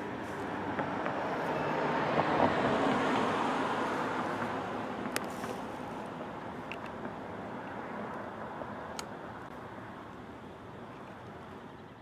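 A car driving past on the road, its tyre and engine noise swelling to a peak about two and a half seconds in, then slowly fading away.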